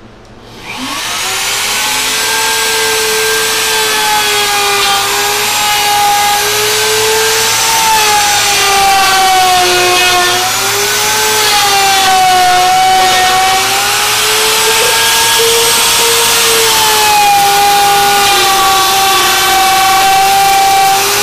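Router switching on about half a second in and spinning up to a steady high whine, then cutting a circular groove through wooden wheel segments as it is swung around a circle-cutting jig. Its pitch sags and recovers several times as the bit takes the load.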